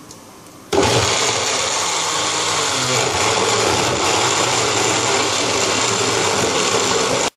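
Countertop blender switched on and running steadily as it purées chunks of fresh tomato into sauce. It starts under a second in and cuts off suddenly near the end.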